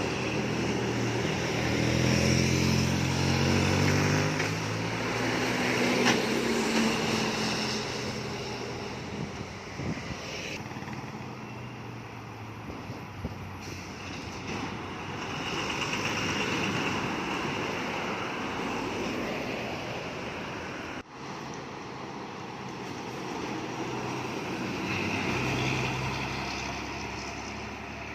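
Heavy trucks and buses passing on a road, engines running over steady road noise. The first engine's pitch falls as it goes by in the opening seconds, and another engine swells near the end.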